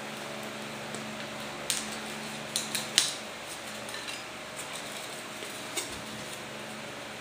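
Light, sharp clicks and clacks of hard tools and parts being picked up and set down on a wooden stool top: a few close together about two to three seconds in, the loudest at the end of that run, and one more near six seconds. A steady low hum runs underneath.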